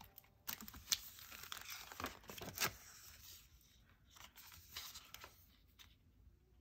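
Sticker-book pages and sticker sheets being handled: stiff paper crinkling and rustling in a quick run of short, sharp crackles, much like paper tearing, dying away after about five seconds.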